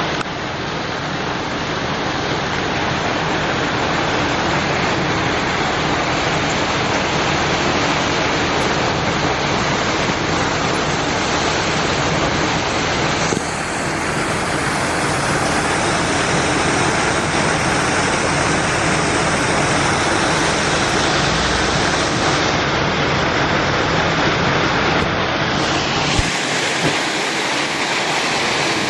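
Steady rush of flowing water. Near the end it turns brighter, with water churning and splashing at the pool's surface.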